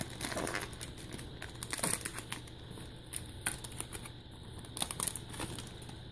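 Foil wrapper of a baseball card pack crinkling as the pack is opened and handled, in short crackles at irregular intervals, the loudest about two seconds in.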